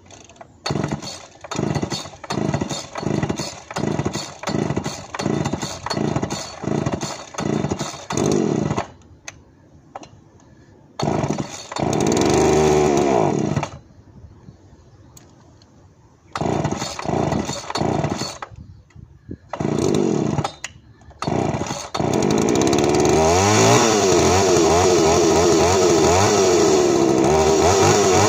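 Poulan 3400 Countervibe two-stroke chainsaw being pull-started: a long run of rapid pulses about two a second as it is cranked, then it catches and revs briefly before cutting out. After a few more short bursts it starts about two-thirds of the way in and keeps running, revved up and down.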